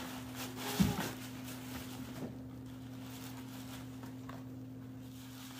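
Kittens rustling and scrabbling in tissue paper in a cardboard box, with a small knock about a second in. A faint steady hum runs underneath.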